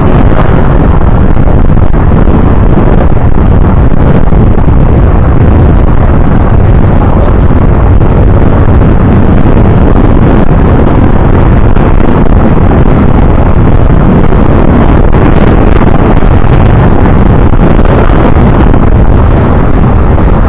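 Loud, steady wind rush on the microphone of a camera riding an open motorcycle, with engine and road noise underneath.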